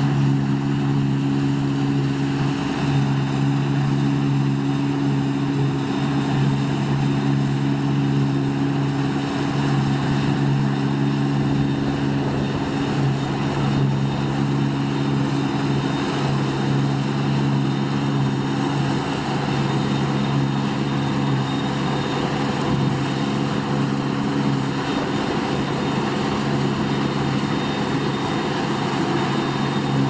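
Deutz-Fahr 5690 HTS combine harvester running steadily under load while cutting barley: a constant engine drone over the whir of its header and threshing machinery.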